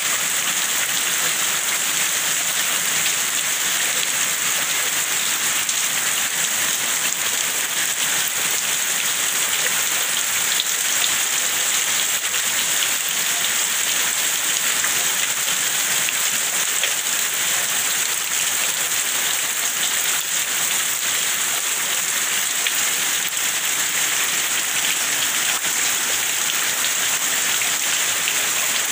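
Steady rain falling, an even, unbroken hiss of drops landing on surfaces.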